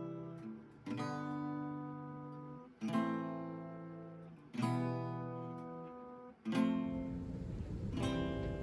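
Background music: acoustic guitar chords strummed and left to ring, a new chord about every two seconds, with busier strumming near the end.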